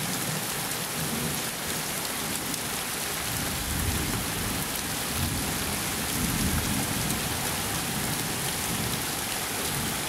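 Steady rain pouring down in a thunderstorm, with a low rumble of thunder rolling through the middle.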